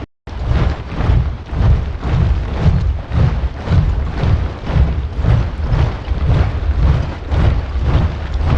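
Large body of soldiers marching in step, their boots striking the ground together about twice a second. The sound cuts out for a moment at the very start.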